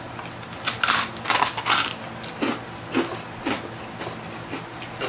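Close-miked eating: chewing and crunching of crispy pata (deep-fried pork knuckle) and noodles, with about half a dozen short, irregular crunches and mouth smacks.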